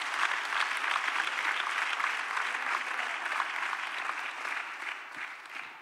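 Church congregation applauding, a dense patter of many hands clapping that fades away near the end.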